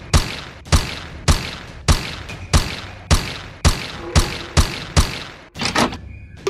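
Pistol gunshot sound effects fired in a rapid string: about ten sharp shots roughly half a second apart, each with a short echoing tail, then a couple of quieter clicks near the end.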